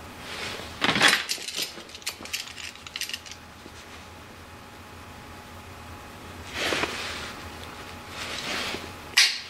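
Steel parts being handled: a bolt, nut, piece of angle iron and locking pliers clink and knock together, with a loud metal clank about a second in, a run of lighter clinks after it, and a sharp click near the end.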